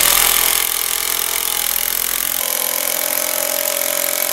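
Cordless drill driving a screw through a wooden block, the motor running steadily under load. Its tone changes about halfway through as the screw goes in.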